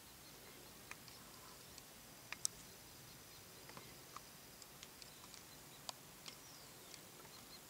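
Near silence: faint field ambience with scattered sharp clicks, the loudest about two and a half seconds in, and a few brief high chirps.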